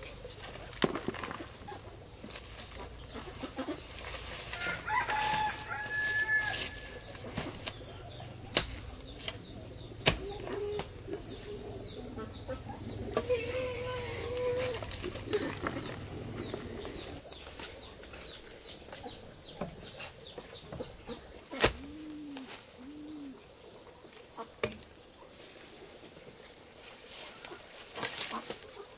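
Chickens clucking with a rooster crowing, among scattered sharp knocks.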